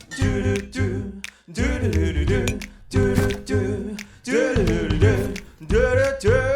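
Background music: a song with a sung vocal line in short phrases over a low bass.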